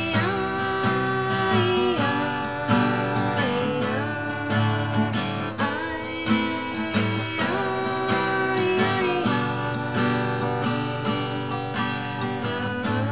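Background music led by strummed acoustic guitar, with a melody line gliding between notes over it.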